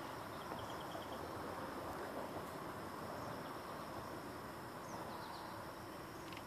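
Quiet outdoor ambience: a steady background hiss with a thin, high, unbroken insect tone and a few faint short bird-like chirps.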